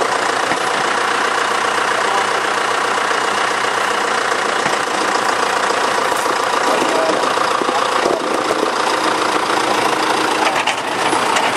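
An engine running steadily at a constant speed, with a few short knocks near the end.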